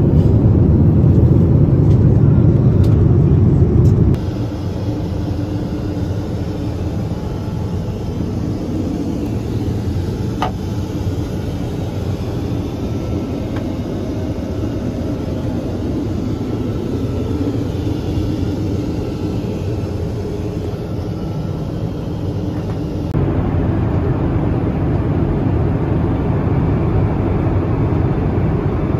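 Steady cabin noise of a Boeing 787 airliner: a low rumble and rush of engine and airflow noise. It drops abruptly about four seconds in and steps up again near the end.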